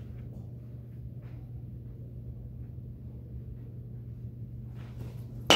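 Steady low hum with a few faint ticks, then near the end a single loud crack of a baseball bat hitting a ball, followed by a ringing ping.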